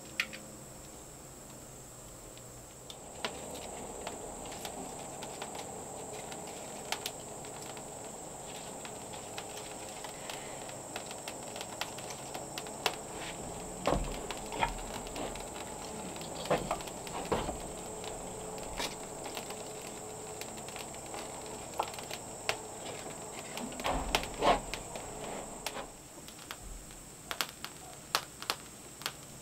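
Knocks and clatter of a cast-iron grill grate and cookware being handled over a cinder-block firebox, with sharp crackles of burning kindling near the end. A steady high insect buzz runs underneath.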